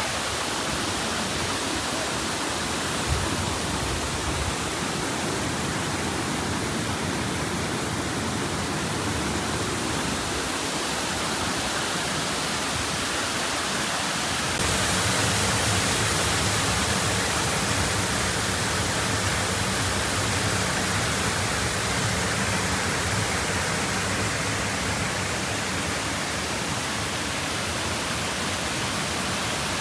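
Shiraito Falls, a broad curtain of many thin streams pouring into a pool, making a steady rushing hiss of falling water that grows louder about halfway through. A brief knock sounds about three seconds in.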